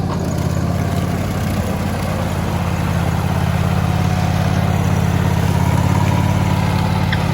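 A motor vehicle engine running steadily at a low, even idle-like hum, close and loud.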